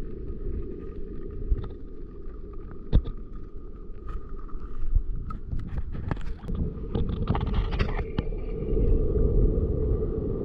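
Wind rumbling on the microphone, with scattered sharp clicks and taps: one strong click about three seconds in and a quick run of them a little past the middle.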